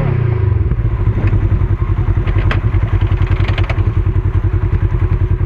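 Off-road vehicle engine idling with an even, rhythmic throb, with a few light clicks about two and a half to three and a half seconds in.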